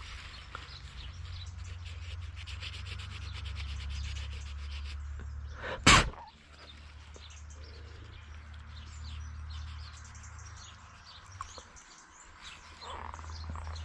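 Paper towel rubbing and scrubbing on a small chainsaw carburetor cover plate, wiping dirt off it, for about five seconds. One sharp, loud knock about six seconds in.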